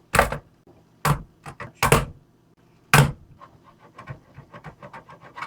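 Four loud hammer blows on an old laptop, a second or so apart with a couple of lighter knocks between, followed by a run of quick, light clicks and rattles.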